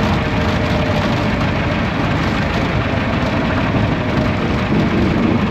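Piper Cub's engine and propeller running, a loud, steady drone mixed with rushing air, heard from inside the cockpit.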